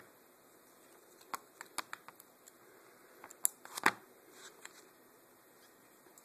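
Pages of a paperback book being flipped and handled: a scatter of short, light clicks and rustles, with the loudest cluster about three and a half to four seconds in.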